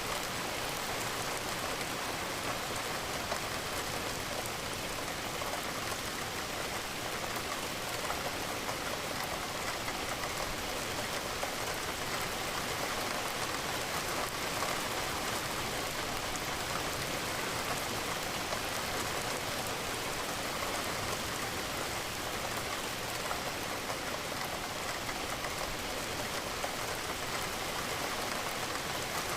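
Steady rain falling against a window: a dense, even patter of drops that does not let up.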